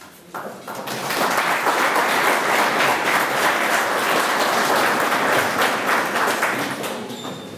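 Audience applauding: the clapping builds up over the first second, holds steady, then dies away near the end.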